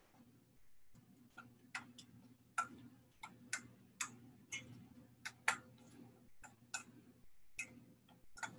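A utensil clicking and scraping against a stainless steel mixing bowl as a thick eggplant mash is stirred, with irregular sharp taps about once or twice a second over a faint steady low hum.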